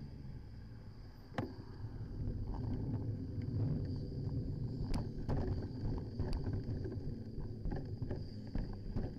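Bicycle riding along a road, heard through a handlebar-mounted camera: a steady rumble of tyre and wind noise that grows louder about two seconds in, with scattered sharp rattles and knocks as the bike goes over bumps.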